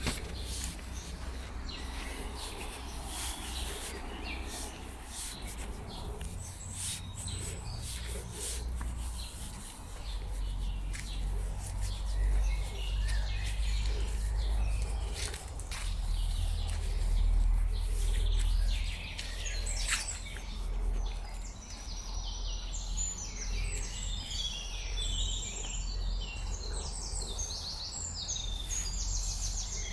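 Several songbirds chirping and twittering, busiest in the last ten seconds, over a steady low rumble with scattered sharp clicks.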